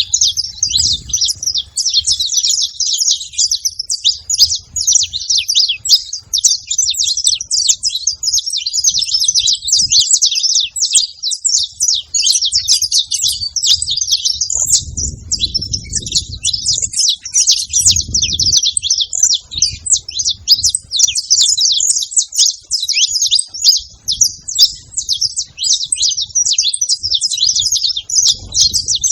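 Saffron finches chirping in a dense, unbroken chatter of short high notes, with low rumbles underneath now and then.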